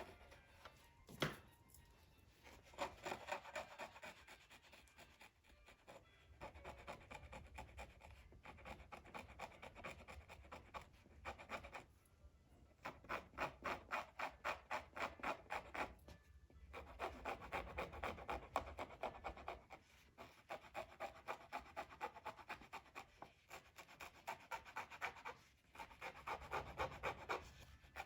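Quick repeated scraping on Torah-scroll parchment, about four strokes a second in runs of a few seconds with short pauses, as a water stain is worked out of the skin.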